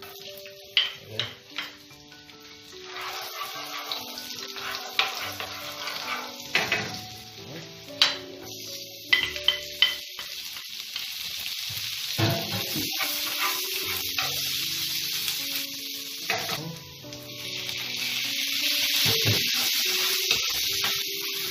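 Hot cooking oil sizzling in a frying pan as minced garlic, chopped onion and then tomato are added and sautéed. The sizzle grows after the first few seconds and is loudest near the end, with sharp clicks and knocks of ingredients and utensils against the pan. Soft background music plays underneath.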